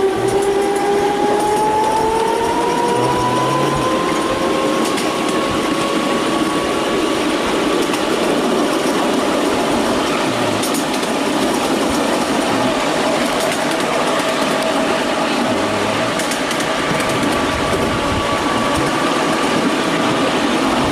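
Miniature locomotive running along the track with a steady rattle, its motor whine rising in pitch over the first six seconds or so as it picks up speed, then holding level. Faint clicks come now and then.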